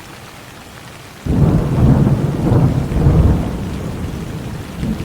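Steady rain, then about a second in a loud, low rumble of thunder starts suddenly and rolls on for about four seconds.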